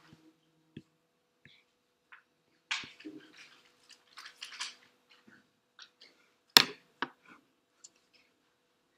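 Scattered small handling noises, short clicks and brief rustles, with a sharp loud click about six and a half seconds in and another just after, over a faint steady hum.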